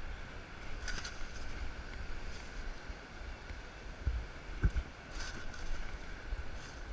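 Wind rumbling on the microphone while a long-handled sand scoop digs in wet beach sand: brief hissing rushes about a second in and again just after five seconds, and two dull thumps just past four seconds.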